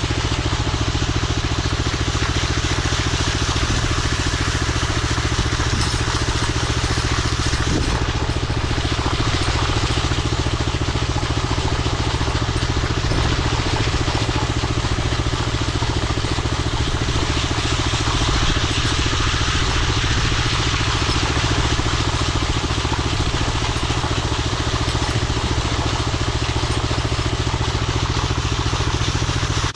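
Walk-behind concrete power trowel's gasoline engine running steadily while the machine floats a fresh slab on its first pass.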